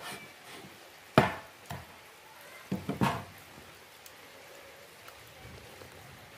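Knife chopping grilled meat on a cutting board: one sharp chop about a second in, a lighter one soon after, then a quick run of three chops around three seconds in.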